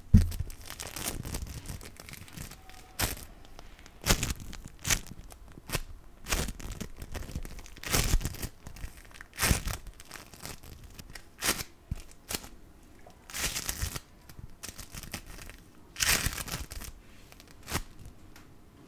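Foam-bead slime (floam) squeezed and pulled apart by hands held right at a microphone: the packed beads give short, uneven crunchy crackles, roughly one burst a second.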